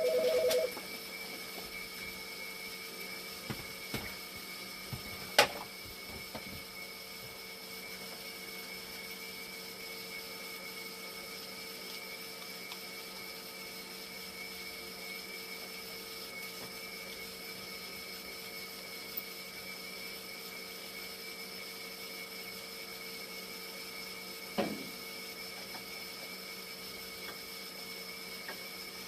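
Hemodialysis machine running with a steady hum of several even tones from its pumps, a short beep at the very start, and a few isolated clicks, the sharpest about five seconds in and another near the end.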